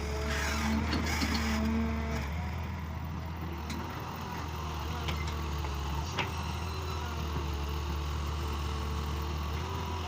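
Excavator's diesel engine running steadily with a low drone, louder in the first couple of seconds, with a few sharp metallic clanks about four, five and six seconds in.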